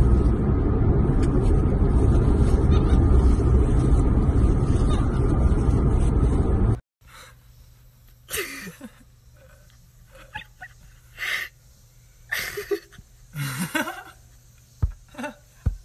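Steady road and engine noise inside a moving car's cabin, which cuts off abruptly about seven seconds in. Then much quieter short breathy gasps and puffs, spaced a second or so apart, with a couple of sharp clicks near the end.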